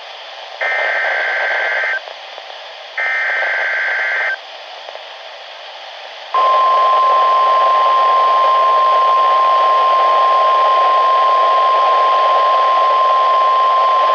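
NOAA Weather Radio Emergency Alert System test heard through a Midland WR-120EZ weather radio's speaker over steady radio hiss: the last two of three short SAME digital header bursts, then about six seconds in the steady 1050 Hz warning alarm tone starts and holds.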